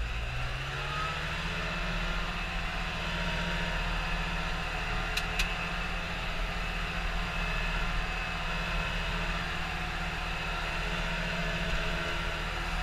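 John Deere 6110 tractor's four-cylinder diesel engine running steadily under way, heard from inside the cab. The engine note rises in the first second or so and then holds, and two sharp clicks come about five seconds in.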